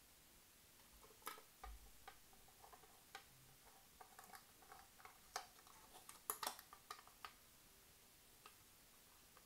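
Faint, irregular clicks and taps of a hand hex driver turning a screw into a metal RC truck chassis, with the parts knocking lightly as they are handled. The clicks come thicker and sharper about six seconds in, then stop.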